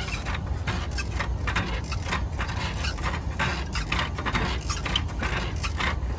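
Playground spring rider creaking and clinking in irregular short clicks as a child rocks on it, over a steady low rumble.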